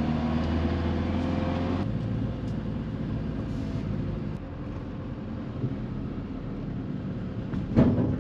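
Car engine idling, cutting off abruptly about two seconds in, followed by a steady low rumble. Two loud clunks come near the end.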